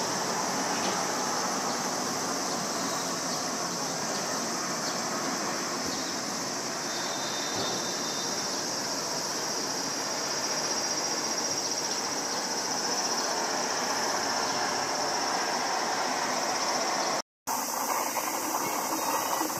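Distant jet noise from a climbing Embraer ERJ-175 airliner's twin turbofans: a steady, even rumble with a steady high hiss over it. The sound drops out for a moment near the end.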